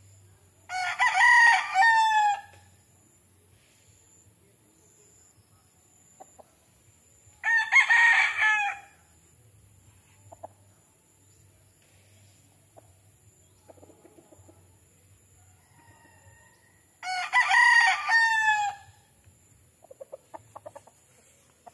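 Roosters crowing three times, each crow a long loud call of about two seconds, well spaced apart.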